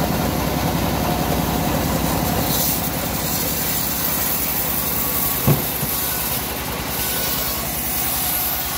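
Stationary diesel engine running steadily with an even low pulse, belt-driving a homemade bandsaw mill. There is a single short knock about five and a half seconds in.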